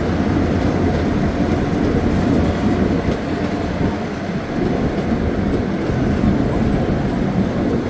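Miniature scenic railway train rolling along its track, a steady rumble of wheels and cars heard from aboard.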